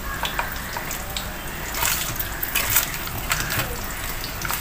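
Cornflake-coated chicken patties deep-frying in a pan of oil on low heat: a steady sizzle with irregular crackles and pops.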